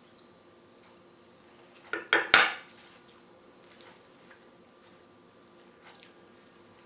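Metal spoon clattering as it is set down on a cutting board: a quick cluster of clicks and knocks about two seconds in.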